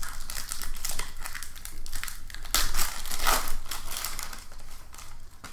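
Foil trading-card pack wrapper crinkling and crackling as it is torn open by hand, a dense run of irregular crackles loudest about halfway through.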